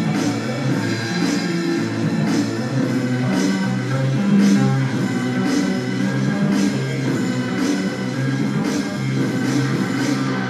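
Rock-style music with guitar and drum kit, a steady beat with a sharp hit about once a second over a moving bass line.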